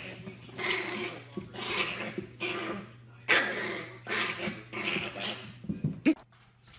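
Small white puppy barking over and over, about one short yap every second, stopping shortly before the end.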